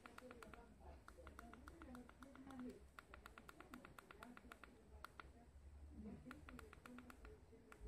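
Faint runs of rapid clicks, about eight a second, starting and stopping several times, over a soft low cooing.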